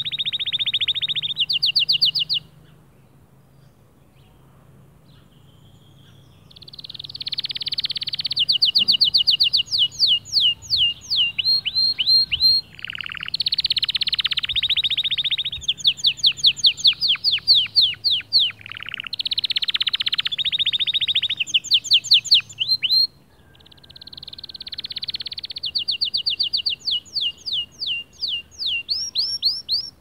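Male white canary singing: long phrases of rapid trills and fast runs of repeated sweeping notes, broken by a pause of about four seconds near the start and a short break about three quarters of the way through.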